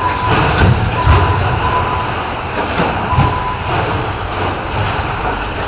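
Short course RC trucks racing on an indoor off-road track: a loud, continuous clattering rumble of tyres and motors, broken by several sharp knocks as trucks land jumps and hit the track boards. A thin steady tone comes and goes in the background.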